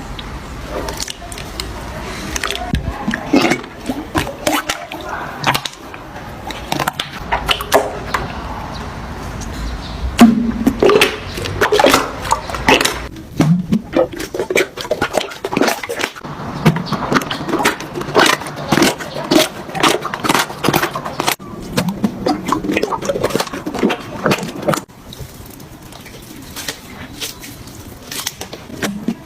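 Slime being squished and pressed by hands: wet squelching with many quick crackles and pops, in short clips that cut suddenly from one to the next.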